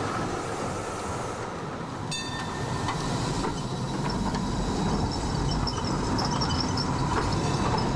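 Tram rolling past on street rails, a steady rumble with a sharp click about two seconds in.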